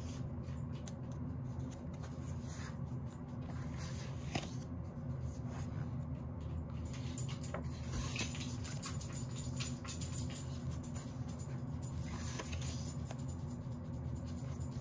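Pages of a photobook being turned by hand: soft paper swishes and rustles with small taps, over a steady low hum.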